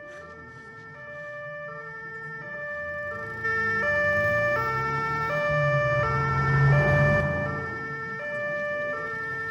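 Two-tone emergency-vehicle siren alternating between a high and a low note about every half second, getting steadily louder as it approaches. The low rumble of vehicle engines swells beneath it and is loudest about six to seven seconds in.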